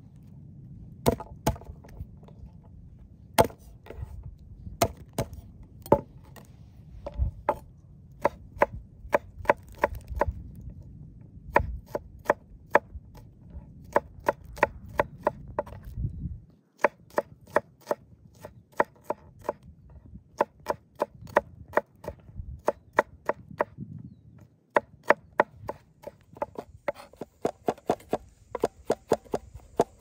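Chef's knife chopping garlic cloves on a wooden cutting board: sharp knocks of the blade against the wood, spaced apart at first, then coming in quicker runs of several knocks a second as the garlic is minced.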